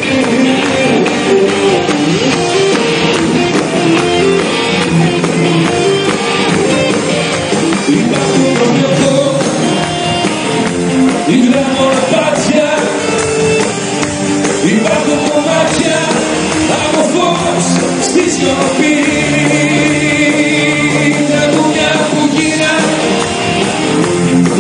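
Live band playing amplified Greek laïko pop through a stadium sound system, with singing, picked up from the crowd on a phone's microphone.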